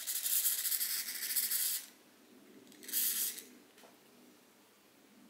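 Two hissing bursts from an aerosol spray can: a long spray of nearly two seconds, then a short one about a second later.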